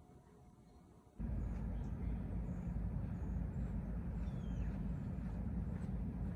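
Outdoor ambient recording: a steady low rumble with faint high chirps above it, cutting in suddenly about a second in after near quiet.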